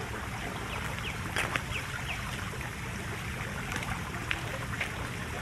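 Steady trickle and splash of a garden fountain's running water, with a few short faint chirps about a second in.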